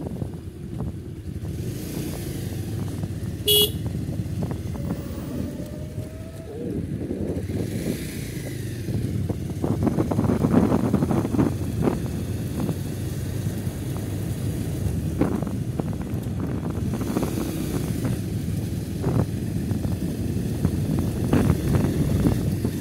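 Steady low rumble of motor traffic, with one short horn toot about three and a half seconds in.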